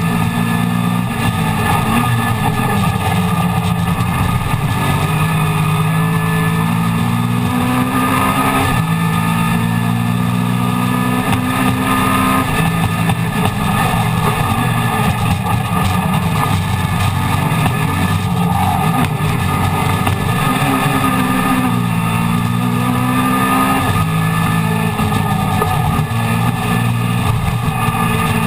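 Classic Mini race car's A-series four-cylinder engine at racing revs, heard from inside the cabin. Its pitch climbs, then drops back every few seconds at gear changes and lifts for corners.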